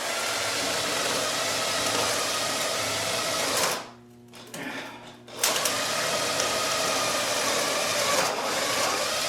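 Cordless drill boring a peg hole into hardwood with a new bit, motor running at speed with a steady whine. It stops a little under four seconds in, then starts again about a second and a half later for a second long run.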